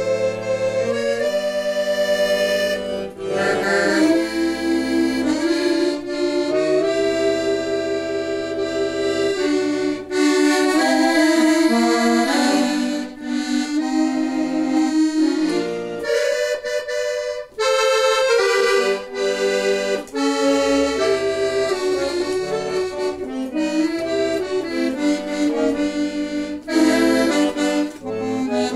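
Solo accordion playing a melody over a lower bass accompaniment, with a brief break about seventeen seconds in.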